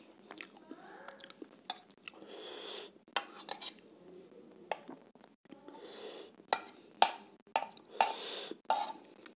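Metal spoon scraping and knocking against a stainless steel bowl while spooning chicken curry out onto a steel plate, ending in a run of about five sharp, ringing clinks.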